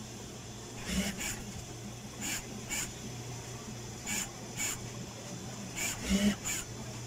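Short rasping rubs of mattress-cover fabric and piping dragged across the sewing-machine table, coming in pairs every second or so, over a steady low hum.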